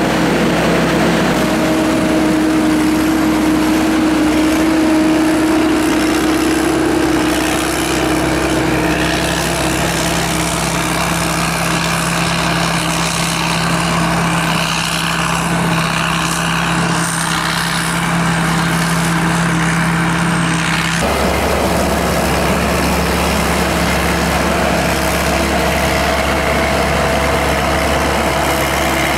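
Combine harvester's turbocharged engine running steadily, with the engine note changing abruptly about 21 seconds in.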